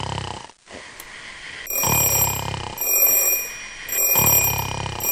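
A person snoring: deep, rhythmic snores, each about a second long, coming roughly every two seconds. A high, steady electronic ringing joins about a second and a half in and carries on with short breaks.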